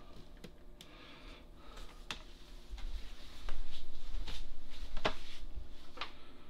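Scattered small clicks and knocks as an ultrasonic cleaner's power cord is plugged into the wall outlet and handled, with a low rumble from about halfway through. The cleaner has not started its cleaning cycle.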